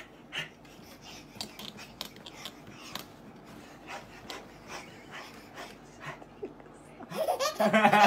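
Faint scattered short sounds, then loud laughter about seven seconds in, from a baby and a man laughing at each other.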